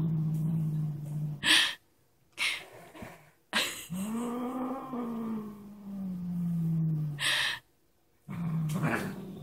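F4 Savannah cat growling low and hissing in possessive play over a toy mouse. A steady growl is cut by a short hiss about a second and a half in. A long growl rises and then sinks in pitch, another hiss follows near the end, and the low growl then starts again.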